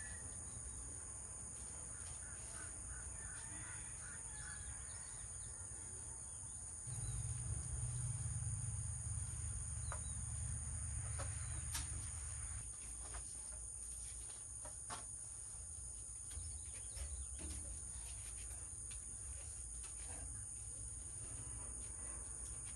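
Quiet outdoor ambience: a steady high-pitched insect drone, birds calling now and then, and scattered light clicks and taps of hooks and steel rods as meat is hung in a steel smoker. A low rumble swells for about five seconds, a third of the way through.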